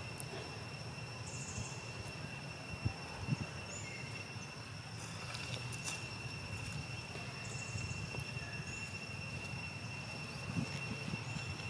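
Outdoor ambience: a steady high-pitched whine over a low rumble, with a few faint short chirps and clicks.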